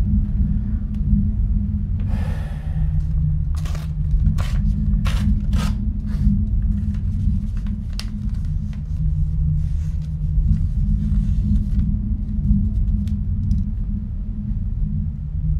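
A steady low rumble, with papery rustles and a few sharp flicks between about two and six seconds in as a notebook's pages are handled.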